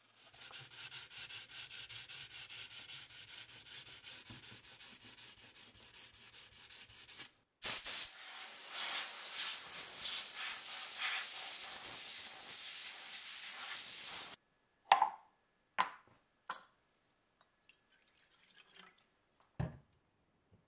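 Rapid, regular rubbing, about six strokes a second, for the first seven seconds; then a compressed-air blow gun hisses loudly and steadily onto the cast-iron sign for about seven seconds and cuts off suddenly. A few short, sharp clicks follow near the end.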